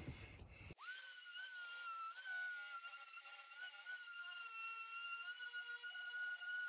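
DeWalt random orbital sander running over hardened Bondo body filler on a metal door, heard as a faint, steady high-pitched whine that starts abruptly about a second in.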